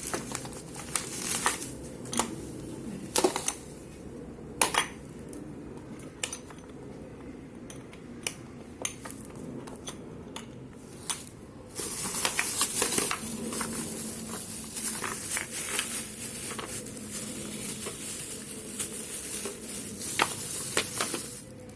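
Hard plastic parts of a children's ride-on toy car clicking and knocking as they are handled and fitted together, scattered sharp taps throughout; from about halfway a steadier rustling joins in, running until just before the end.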